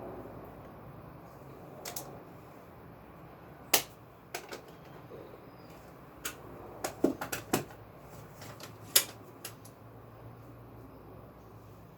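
About a dozen sharp, irregular clicks and taps, bunched around the middle, over a faint steady low hum.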